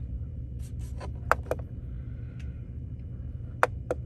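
Control dial on a ResMed CPAP machine being turned and pressed: a few faint ticks, then two pairs of sharp clicks, one a little over a second in and one near the end, over a steady low hum.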